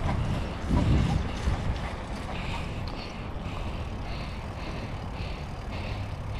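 Mountain bike rolling along an asphalt street, with tyre and drivetrain noise and a steady low rumble of wind on the microphone. A louder low surge comes about a second in.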